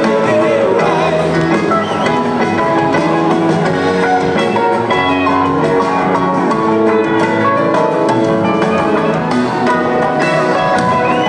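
Live rock band playing, heard from among the audience: electric guitars, acoustic guitar, keyboard and drum kit together in a continuous, loud passage.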